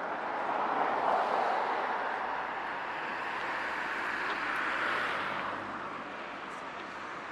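Road traffic passing: two swells of tyre and engine noise, one about a second in and another around five seconds, easing off after six seconds.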